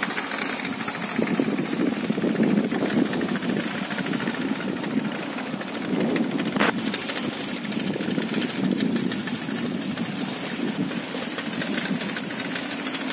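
Wind buffeting a phone's microphone: a steady, unpitched rumble that flutters throughout, with one short click about six and a half seconds in.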